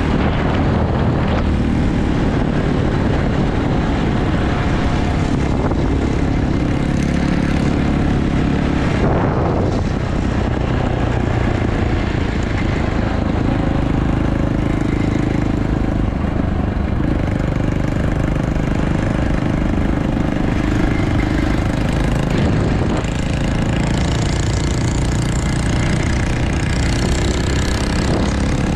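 Dirt bike engine running steadily under way, its note shifting a few times as the bike changes speed.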